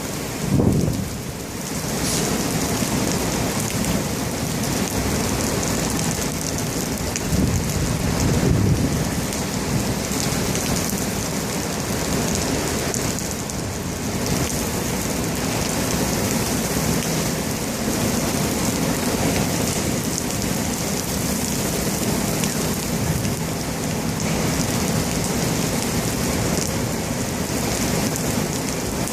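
Heavy rain pouring steadily during a severe thunderstorm, with a rumble of thunder right at the start and another, longer one about seven to nine seconds in.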